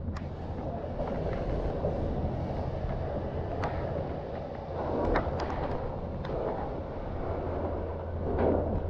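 An engine running steadily under a noisy background, with scattered sharp clicks and knocks; the noise swells briefly about five seconds in and again near the end.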